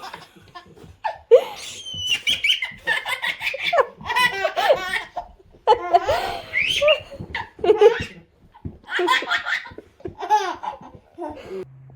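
A baby laughing in several bouts of belly laughs with short breaths between them.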